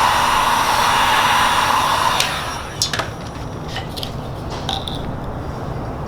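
A power tool runs steadily for about two seconds and stops, followed by several light clicks and knocks from handling parts.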